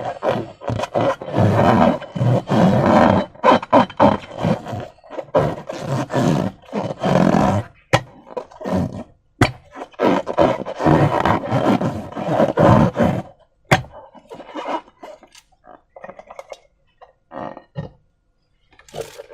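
Slime being squeezed and stretched by hand, with wet squelching in irregular bursts and a few sharp snaps.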